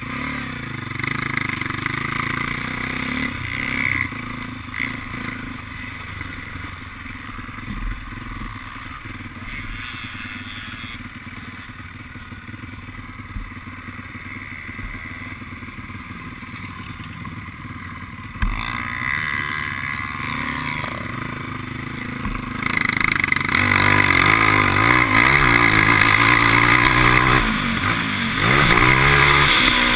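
Quad ATV engine ticking over with dirt-bike engines nearby, then revving up and running loud with rising and falling pitch as the quad rides along the dirt track, heard from the rider's helmet.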